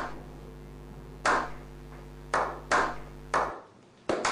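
A slow clap: single ringing hand claps about a second apart, quickening near the end into faster clapping by several people.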